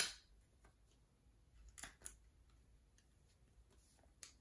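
Faint crinkles of a thin plastic penny sleeve as a trading card is slid into it: a sharp crackle at the start, two more about two seconds in, and another near the end.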